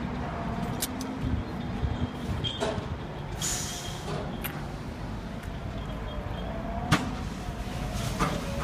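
Steady low machinery rumble with a faint droning hum, broken by a few sharp clicks, the loudest about seven seconds in.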